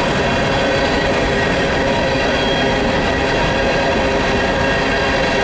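Empty steel coal hopper cars rolling past: a steady rumble of wheels on rail, with a few steady ringing tones over it.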